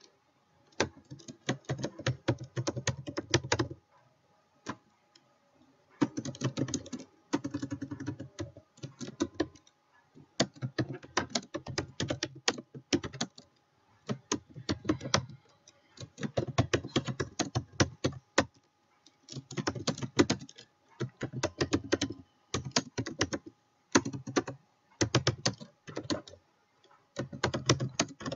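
Typing on a computer keyboard: rapid runs of key clicks a few seconds long, broken by short pauses.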